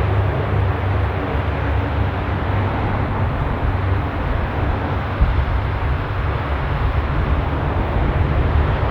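Lockheed KC-130J Hercules' four Rolls-Royce AE 2100 turboprop engines running, a loud steady drone with a deep rumble.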